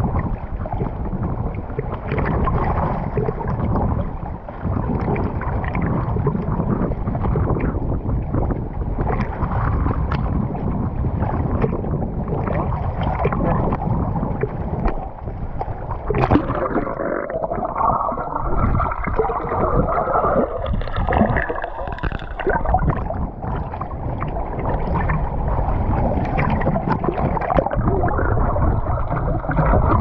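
Sea water sloshing and splashing right at a camera held at the waterline beside an outrigger boat's hull, a steady wash that turns to a wavering gurgle for a few seconds past the middle.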